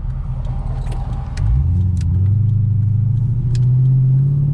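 2002 Infiniti Q45's 4.5-litre V8 running through Nissan Titan shorty headers, heard from inside the car: a deep thump-thump exhaust note that, about a second and a half in, jumps louder and rises in pitch as the car accelerates away, then holds steady.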